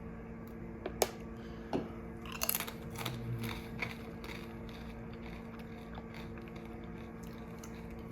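A chip with chilli sauce on it being bitten and eaten: a sharp click about a second in, a burst of crunching from about two and a half to four seconds in, then quiet chewing.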